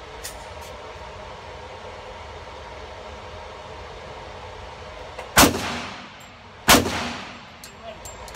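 Glock 21 pistol firing .45 ACP: two sharp shots a little over a second apart about five seconds in, and a third right at the end. Each round goes off with no misfire, though the ammunition is cheap. Faint light ticks come between the shots.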